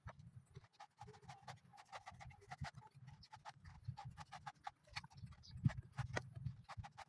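Blade cutting and peeling the husk of a coconut: rapid, irregular sharp knocks and scrapes, several a second, over a low rumble.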